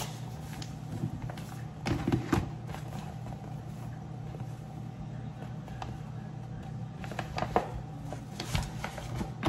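Kitchen handling sounds as all-purpose flour is fetched and spooned into a mixing bowl: a couple of knocks about two seconds in and a few more near the end, over a steady low hum.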